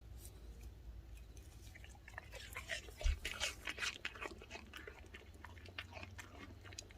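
A dog chewing and crunching food close to the microphone: a dense run of crisp crunches from about two seconds in, thinning out towards the end, with one low thump about three seconds in.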